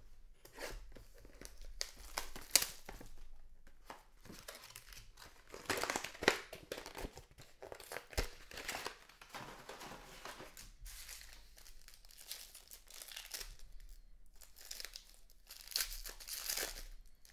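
Plastic and paper trading-card packaging crinkling and tearing as a pack is opened and handled, with a few sharp clicks.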